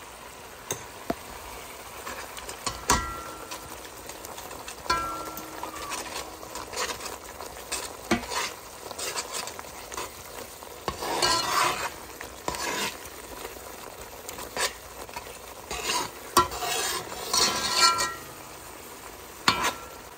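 A metal spoon stirs and scrapes through tomato paste, pepper and onion frying in a metal pot, over a steady sizzle. The spoon knocks against the pot from time to time, a few knocks leaving a short ring.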